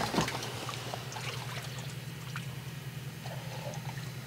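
Water splashing and trickling, with a sharp splash at the very start and scattered small splashes after, over a steady low hum.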